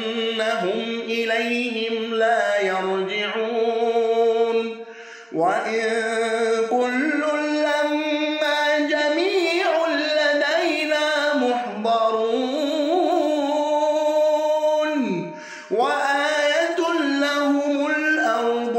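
A man reciting the Quran in the melodic tajweed style, drawing out long, ornamented notes, with two short breaths about five and fifteen seconds in.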